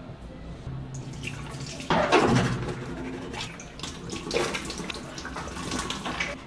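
Bathroom sink tap turned on about two seconds in, water running and splashing into the basin as a toothbrush is wetted under the stream, with the flow surging unevenly.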